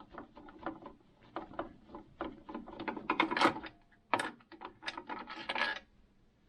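Irregular clicks, taps and short scrapes of hands and a screwdriver working on a sewing machine's housing, trying to get a cover off.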